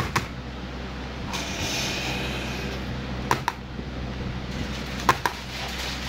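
Sharp light clicks of a soldering iron and a small circuit board being handled during desoldering, coming in three close pairs, over a steady low hum. A short hiss comes about a second in.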